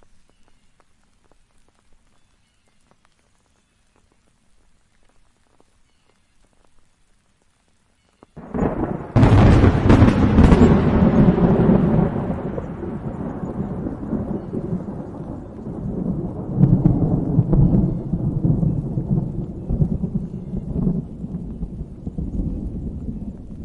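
Thunder: after about eight seconds of faint patter, a sudden close thunderclap cracks and crashes, then rolls on as a long low rumble that swells again partway through and is still going at the end.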